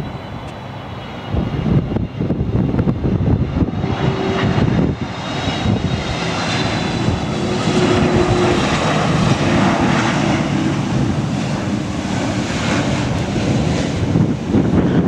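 Boeing 767-400ER's twin General Electric CF6 turbofans on final approach. A jet roar grows louder from about four seconds in, carrying a faint high whine, and holds steady to the end. Wind buffets the microphone.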